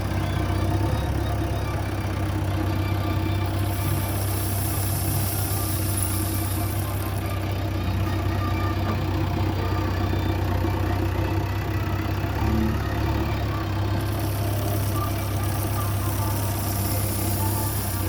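JCB 3DX backhoe loader's diesel engine running steadily with a low hum. A high hiss comes in twice, each time for a few seconds.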